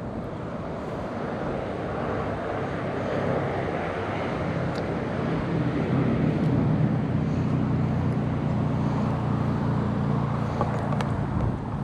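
A distant engine drone, a low hum that swells over several seconds and then holds steady.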